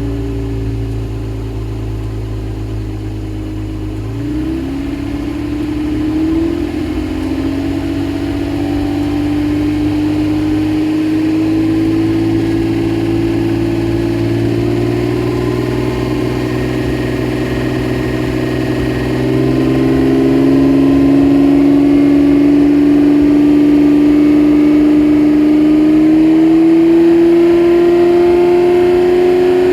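Naturally aspirated Toyota Supra's straight-six engine running under a long steady pull, its pitch rising slowly and evenly. There is a brief dip and recovery in pitch about four seconds in, and the engine gets louder about two-thirds of the way through.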